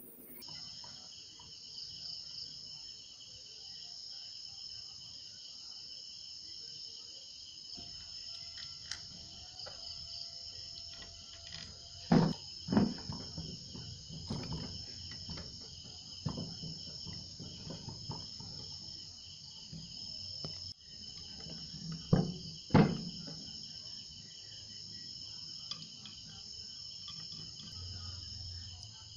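Steady high chirring of insects in the background, with metal parts of an air compressor pump clanking on the workbench during reassembly: two sharp knocks about twelve seconds in and two more about twenty-two seconds in, with lighter taps in between.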